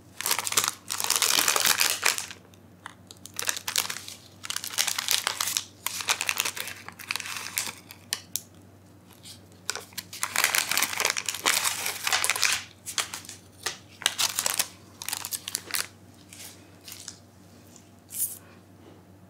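Yellow Paqui One Chip Challenge wrapper being torn and crinkled in gloved hands, in repeated bursts of crackling that become shorter and sparser over the last few seconds.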